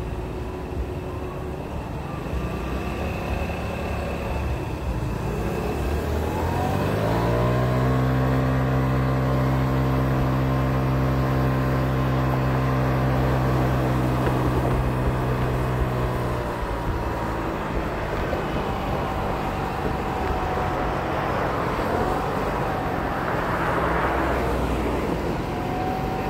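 Small scooter engine pulling away: its drone rises in pitch over about two seconds starting some five seconds in, holds at one steady pitch for about nine seconds, then drops away. Traffic noise underneath, with a brief rush of noise near the end.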